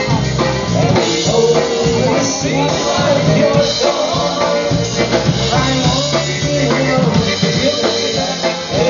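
Polish-American polka band playing live dance music, with concertina and drum kit keeping a steady dance beat.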